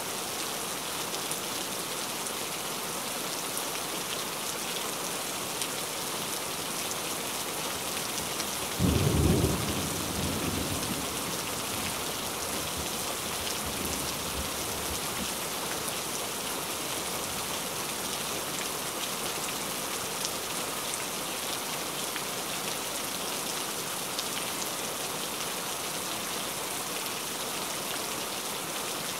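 Steady heavy rain, with one loud clap of thunder about nine seconds in that rumbles away over the next couple of seconds.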